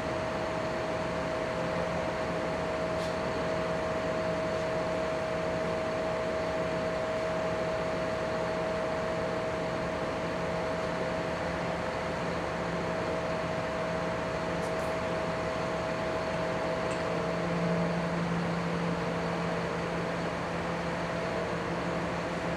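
Steady engine drone at an even speed, with a constant hum and no change in pitch.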